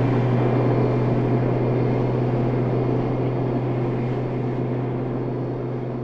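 Inside the cabin of a Nissan Skyline R34 with a built RB32/26 straight-six: the engine drones steadily at a light-throttle cruise under road noise, slowly getting quieter. The car is being nursed along gently on a snapped axle.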